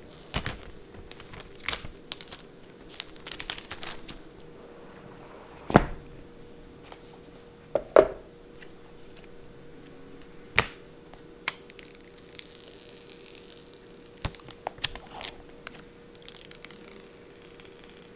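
Unboxing an iPhone X: the box's plastic shrink-wrap being torn off and crinkled, then the cardboard box opened and handled. There are scattered crinkles and rustles with sharp clicks and knocks, the loudest about six and eight seconds in.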